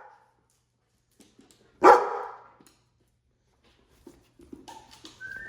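A dog gives a single loud bark about two seconds in, echoing in a small room. Faint scuffling and a brief high whine follow near the end.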